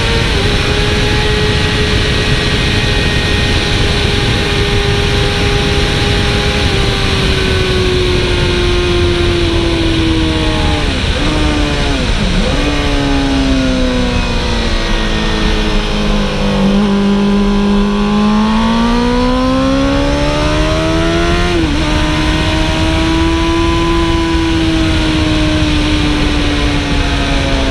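Sport motorcycle engine revving hard on a track lap, with constant wind rush on the bike-mounted microphone. The engine note holds high, drops through a couple of quick downshifts, bottoms out, pulls back up through the revs, then eases off near the end.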